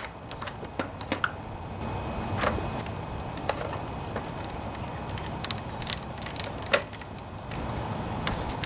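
Scattered metallic clicks and clinks of hand tools and small engine parts being handled during reassembly of a lawnmower engine, over a steady low background hum.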